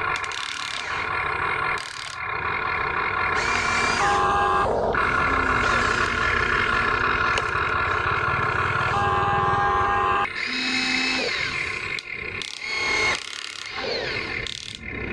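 Electric gear motors of a Huina toy RC excavator whining as the boom, arm and bucket work, the pitch jumping and gliding several times as the motors start, stop and change speed, becoming more uneven after about ten seconds.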